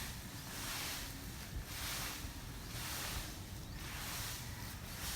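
A rake scraping over the top of a grassy yard in repeated strokes, about one a second.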